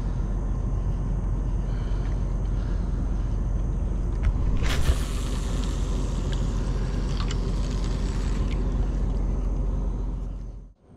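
Steady low rumble, with a brief clatter about four and a half seconds in and a few light clicks; the rumble cuts off sharply just before the end.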